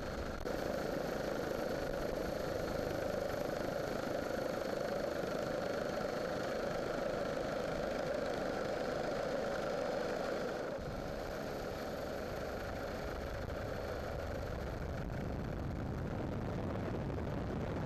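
Steady engine drone with a faint high whine above it. It changes and drops slightly about eleven seconds in.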